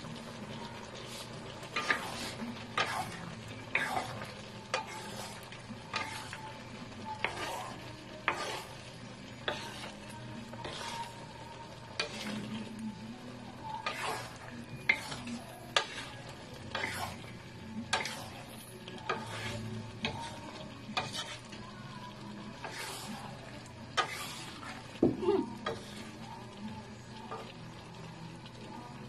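A utensil stirring shrimp and squash chunks in coconut milk in a nonstick pan, with irregular clicks and scrapes against the pan about once or twice a second, a louder cluster near the end, over a steady sizzle of the pan cooking.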